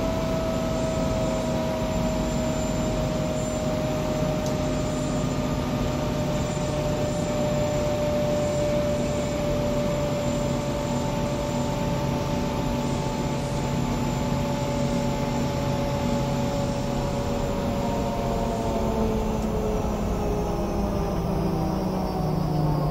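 Cabin interior of a Sikorsky S-61N helicopter as its General Electric CT58 turbine winds down at shutdown. A steady, loud drone carries several whining tones that slowly fall in pitch. Near the end a high whine begins sliding down as well.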